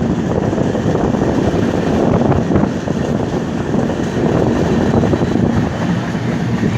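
Steady rumble of a moving LHB passenger coach heard from on board, with wind buffeting the microphone and faint rail clicks.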